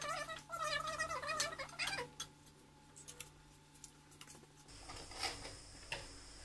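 Pressure cooker whistle, a wavering, warbling tone that stops about two seconds in. After it come faint clicks of kitchen scissors snipping fish.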